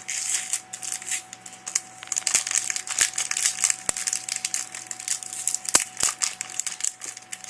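Foil wrapper of a Yu-Gi-Oh booster pack crinkling and crackling as it is handled and opened, with irregular sharp crackles throughout.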